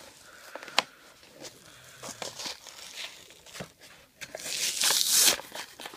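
Plastic blister pack of a die-cast toy car crinkling and tearing as it is pulled off its cardboard backing card, with scattered clicks and crackles and a louder stretch of tearing about four seconds in that lasts about a second.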